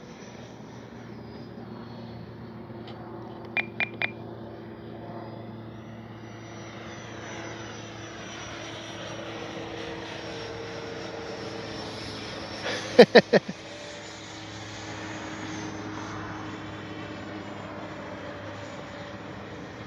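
E-flite F-16 70 mm electric ducted fan jet flying, its fan giving a steady whoosh that swells and fades as it passes. Short sharp clicks cut in close to the microphone: three about four seconds in and four louder ones about 13 seconds in.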